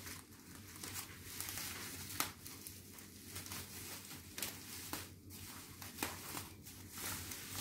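Plastic packaging crinkling and rustling in the hands, with irregular small crackles and scrapes, as a sellotaped packet is worked open.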